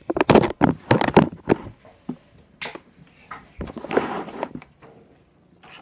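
Sheets of drawing paper rustling and crackling as they are handled, with a dense run of crackles and knocks in the first second and a half and another rustle about four seconds in.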